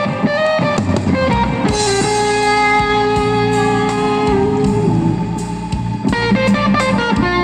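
Instrumental passage of a rock song with electric guitar and drums, played through a 6.5-inch car component speaker set (woofer and tweeter) under test. The guitar holds long sustained notes over the drums.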